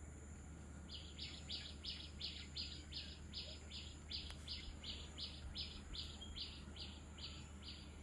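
A bird repeating one short, high call in an even series, about two and a half notes a second, starting about a second in and stopping shortly before the end.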